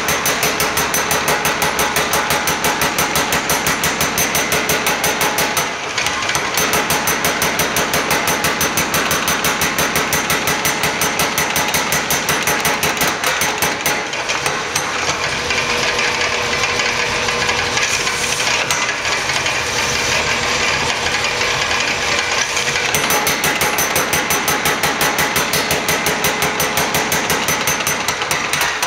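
Power hammer running, its dies striking a red-hot steel bar in a rapid, even rhythm of several blows a second as the bar is drawn out. The blows break off briefly about six seconds in, then carry on.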